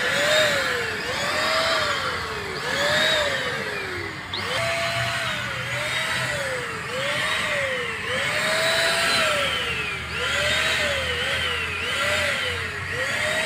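Multipro ESP-800JY electric paint spray gun running while spraying duco paint thinned with thinner: a motor whine over a hiss of air and paint. The whine's pitch rises sharply and sags slowly, over and over, about once a second.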